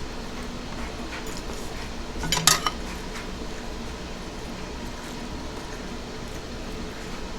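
Eating utensils clinking against a dish in a short cluster of clicks about two and a half seconds in, with a few faint scattered clicks otherwise, over a steady low hum.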